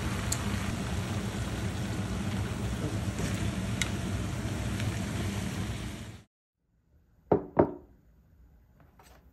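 Steady rushing noise over a low hum that cuts off abruptly about six seconds in. About a second later come two sharp knocks, a third of a second apart.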